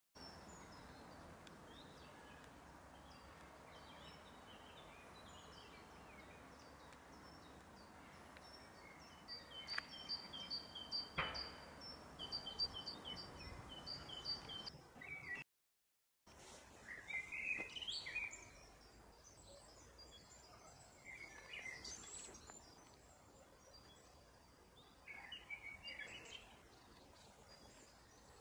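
Several songbirds singing and calling, faint over a steady background hiss, with one bird repeating a quick series of high notes near the middle and two sharp clicks there. The sound cuts out for about a second halfway, then other scattered bird calls follow.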